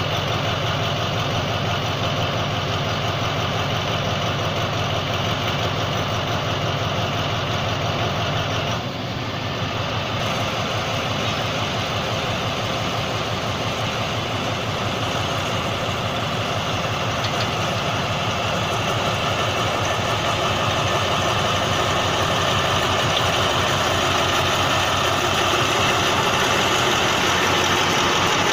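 Alsthom diesel-electric locomotive engine idling steadily, then running up and growing louder over the last third as the train pulls away.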